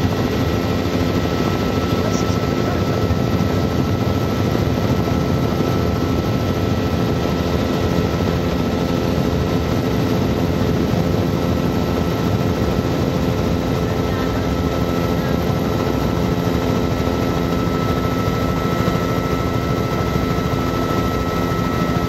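Helicopter in flight heard from inside its cabin: a steady, dense drone of engine and rotor, with several constant tones running through it.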